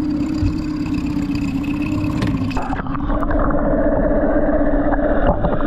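Boat's outboard motor idling with a steady hum. About three seconds in the sound turns muffled, heard from under the water, with a few short knocks.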